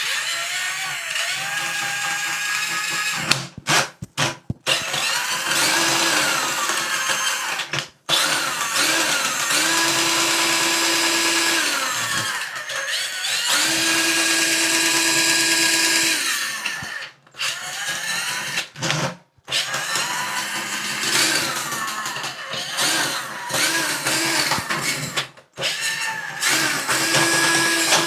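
Ryobi cordless drain auger running, its cable spinning as it feeds into a clogged shower drain. The motor whine rises and falls in pitch and stops and restarts several times.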